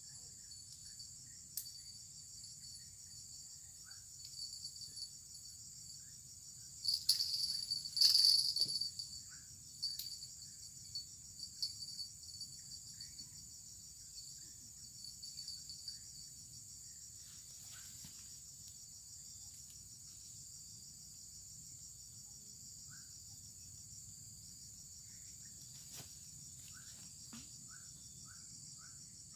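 Steady high-pitched insect chorus with a fine pulsing buzz, swelling louder for a moment about seven seconds in, with a few faint short chirps and sharp clicks over it.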